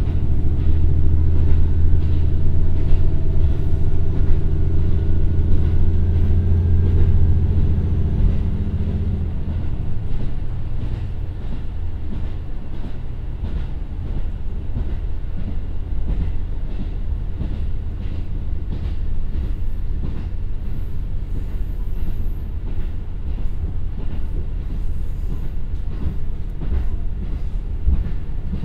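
KiHa 150 diesel railcar heard from inside the cabin at about 60–68 km/h: its Komatsu N-KDMF15HZ 450 PS turbo diesel drones low under power, then the engine note fades out about nine seconds in, leaving the rumble of the wheels on the rails with a steady run of rail-joint clicks.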